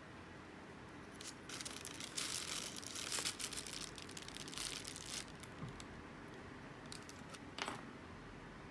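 Irregular crinkling and rustling of something being handled for a few seconds, then a single sharp click near the end.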